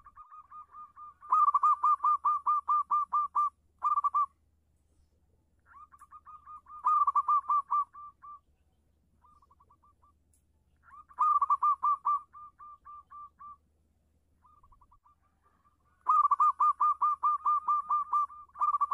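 Zebra dove (perkutut) singing: four bouts of rapid, staccato cooing notes, about five a second. The bouts come roughly every five seconds, each with softer notes leading in and trailing off.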